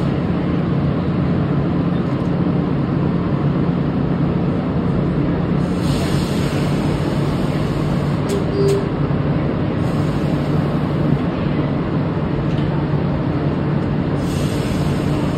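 Steady low hum and rumble inside a subway car standing in the tunnel, from the car's running equipment.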